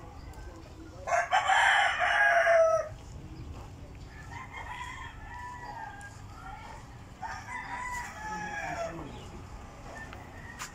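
A rooster crowing twice: a loud crow about a second in and a fainter one about seven seconds in, each ending on a falling note.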